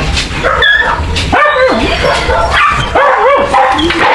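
A dog yelping and whining: about four short, high-pitched cries that rise and fall in pitch.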